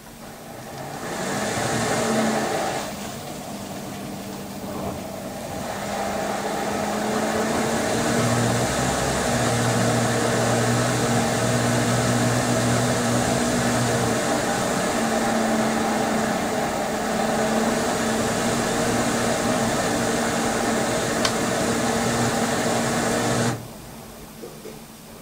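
LG VC2 washer-dryer's inverter direct-drive motor turning the drum fast during the wash, a steady motor hum under the rush of water and a wet double duvet churning in the drum. It starts about a second in, eases briefly, builds up again, and cuts off suddenly near the end.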